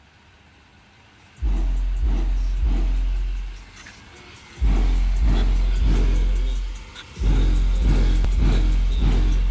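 Twin Kicker CompR 12-inch subwoofers in a Jeep Grand Cherokee thumping out bass-heavy music, heard from outside the closed car: long, very deep bass notes under a steady beat. They come in about a second and a half in and drop out briefly twice.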